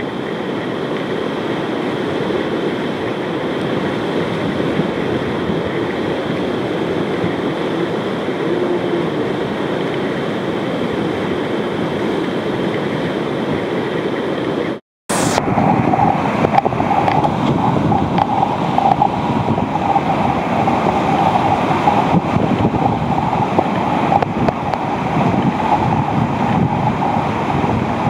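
Continuous rushing roar of big whitewater rapids crashing over a river wave. The sound cuts out for a split second about halfway through, then resumes slightly louder.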